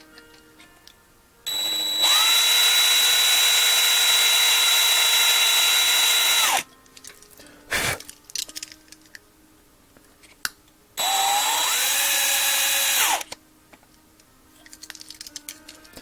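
Electric drill with a 3/16-inch bit running twice, a longer run of about five seconds and a shorter one of about two, each spinning up to a steady whine as it drills out the metal rivet post holding a 1/64 diecast truck together. A short sharp click comes between the two runs.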